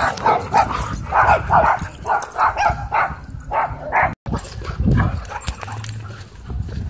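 Dogs barking in rough play, several short barks a second. About four seconds in the barking stops suddenly; one more bark follows a second later, then quieter dog sounds.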